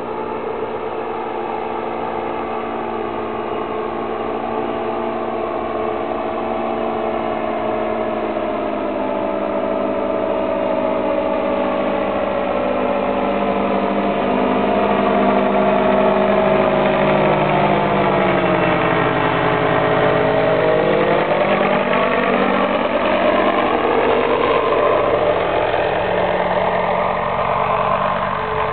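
Paramotor trike's engine and propeller droning as it comes in to land. The drone grows louder toward the middle, its pitch sinks about two-thirds of the way through, then climbs again near the end.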